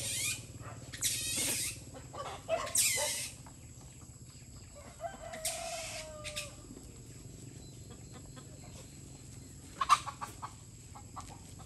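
Several short, shrill animal cries in the first three seconds, another about five seconds in, then a short sharp sound near the end.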